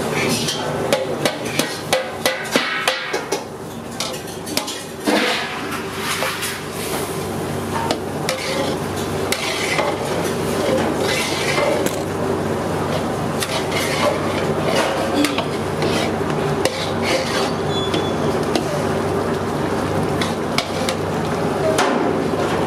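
Metal utensils clinking and scraping against cooking pots and plates, with a quick run of sharp clinks in the first few seconds and scattered ones after, over a steady hum.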